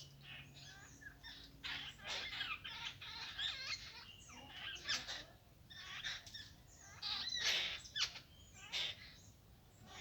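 Bird calls: an irregular run of varied chirps and squawks with quick pitch glides, loudest about seven to eight seconds in.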